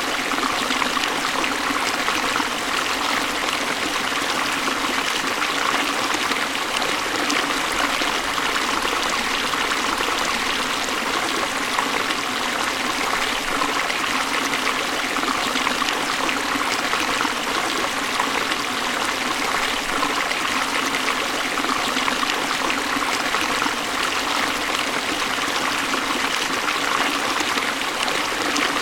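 Waterfall: water rushing steadily in an even, unbroken hiss with little deep rumble.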